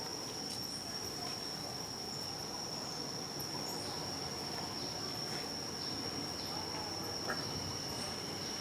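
Steady high-pitched insect drone, like crickets, holding one unbroken tone, with a few faint clicks scattered through it.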